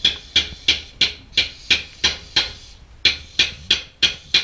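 Percussive music: a short, bright knock hit at a very even pace of about three a second, with one beat skipped midway.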